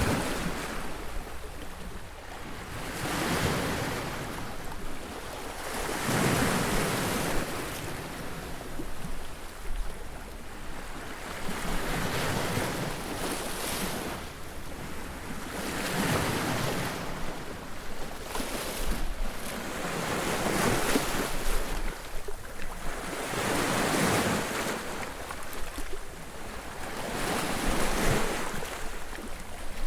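Sea waves breaking on a beach, one surge of surf every three to four seconds, each swelling and then washing back.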